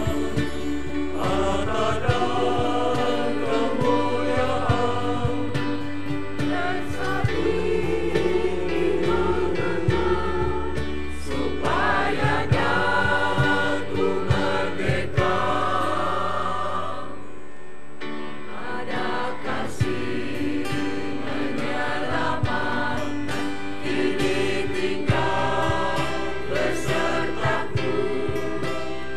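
Church choir singing a hymn in parts, with sustained notes and a short break between phrases about two-thirds of the way through.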